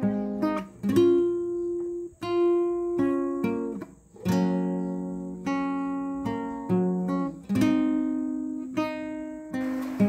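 Background music on acoustic guitar: strummed and plucked chords, each ringing out and fading before the next.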